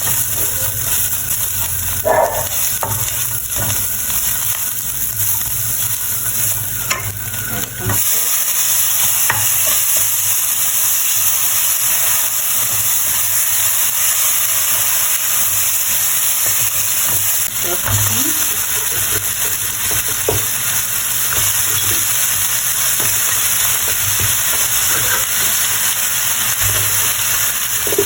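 Oil sizzling in a frying pan while the ingredients are stirred, with scattered clicks and scrapes of the utensil against the pan. The sizzle gets louder a few seconds in and stays that way.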